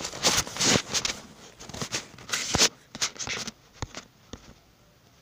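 Handling noise: fabric rustling and scraping against the recording device's microphone, a dense run of crackling bursts that thins to a few scattered clicks after about three and a half seconds.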